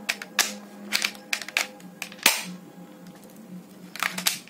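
Sharp plastic clicks and taps from handling a toy 6 mm BB air pistol, a scattered series with the loudest about two seconds in and a quick cluster near the end.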